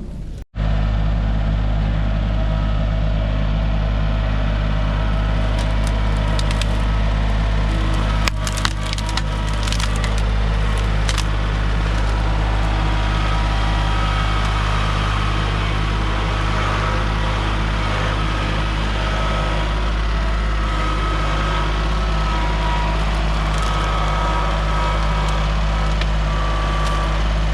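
A heavy machine's engine running steadily, with wood cracking and snapping a few times in the middle as branches are handled.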